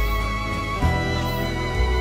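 Background music: slow instrumental piece of sustained chords that change about once a second.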